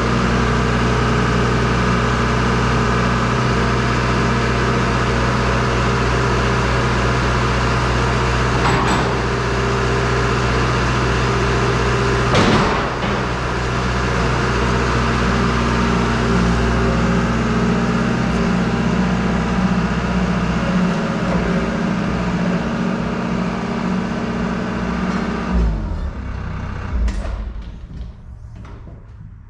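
An engine running steadily at a constant speed, with a single clunk about halfway through. About 26 seconds in it shuts off and runs down, leaving only a few faint knocks.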